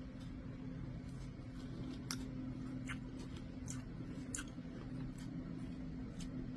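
A steady low electrical hum with irregular light clicks and ticks over it, the sharpest a little after two seconds and around four and a half seconds in.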